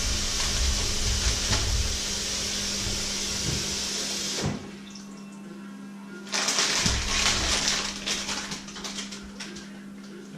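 Water running from a kitchen tap into the sink. It shuts off about four and a half seconds in, then runs again with splashing a couple of seconds later and trails off near the end. A steady low electrical hum sits underneath.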